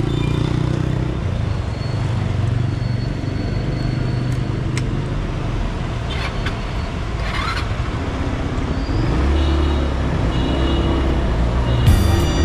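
Motorcycle engine running while riding, with road and wind noise, growing a little louder about nine seconds in. Near the end a short music sting begins.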